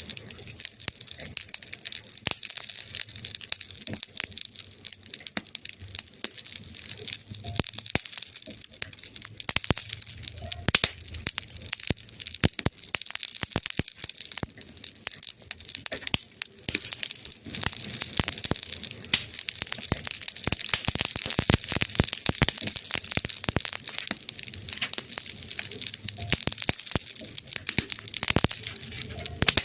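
Wood fire crackling and popping in quick irregular snaps over a steady hiss.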